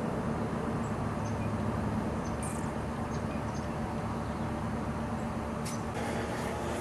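Steady outdoor background rumble with a low hum and a few faint, short high chirps. The background tone shifts about six seconds in.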